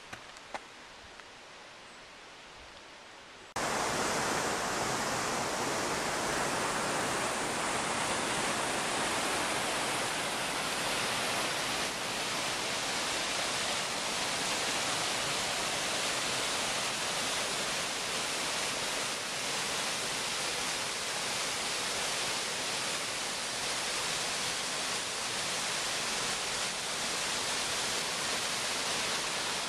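Whitewater of a mountain creek rushing over rocks, a loud steady rush of water. It cuts in suddenly about three and a half seconds in, after a few quieter seconds with a couple of soft clicks.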